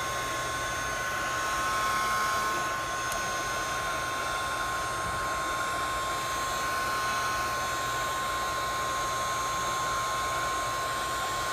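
Heat gun running steadily, a constant blowing rush with a steady whine in it, heating a phone's screen glass to loosen it for separation.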